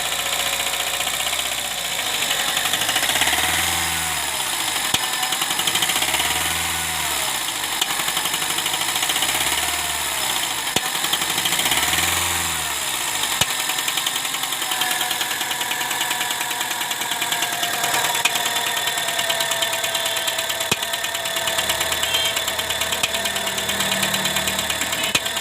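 Honda Civic Hybrid engine running with a loud mechanical noise. It is revved four times, the noise growing as it accelerates, then settles to a steady idle. The noise points to a fault the mechanic has not traced: the tappets check out fine, and the car logs random misfires and a P1024 valve pause system sticking-on code.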